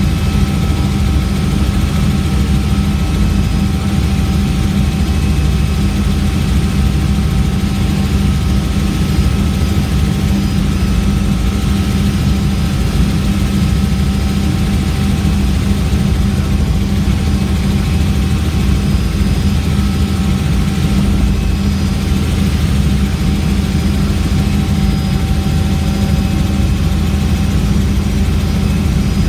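Helicopter engine and rotor noise heard on board in flight: a loud, steady drone with a faint whine held at a constant pitch.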